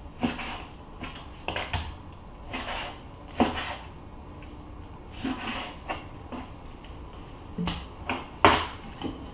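Cleaver slicing raw venison on a plastic cutting board: a dozen or so irregular knocks as the blade comes down through the meat onto the board.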